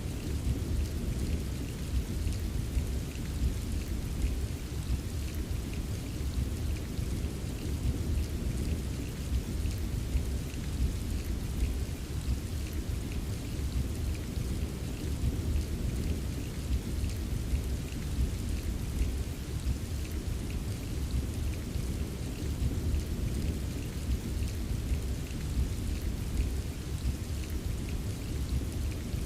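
Steady rain with many small drop ticks over a continuous low rumble of distant thunder.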